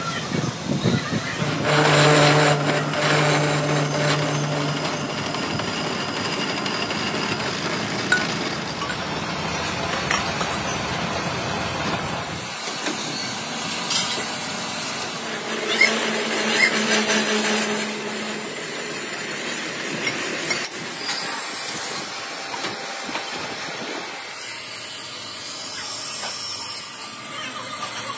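Machine-shop noise: metal-working lathes and machinery running steadily, with occasional sharp metal clanks and knocks as steel tubes are handled.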